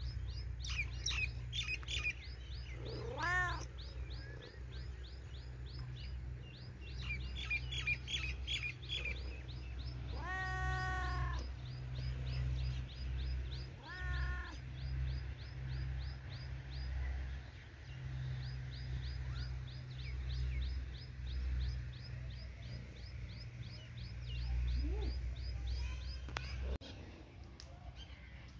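White long-haired cat meowing a few times, each call arching in pitch. A bird repeats short high chirps at about three or four a second, over a low steady rumble.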